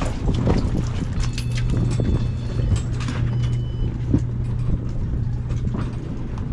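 Dive boat's engine running with a steady low hum, with scattered knocks and clicks from footsteps and gear on the deck.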